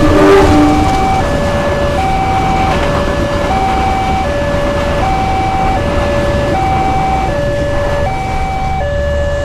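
Railway level-crossing warning siren sounding a steady two-tone hi-lo alternation, each tone held about three quarters of a second, over a steady rush and low rumble of passing traffic. In the first second a louder rush and a low horn-like tone die away.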